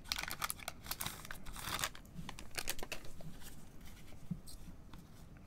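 A foil trading-card pack, a Panini Donruss soccer hobby pack, being torn open and crinkled by gloved hands. The tearing and crinkling is busiest in the first two seconds, then it turns to fainter rustling as the stack of cards is drawn out.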